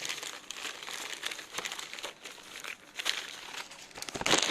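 Packaging crinkling and rustling as it is handled and turned over, with a louder burst of crinkling near the end.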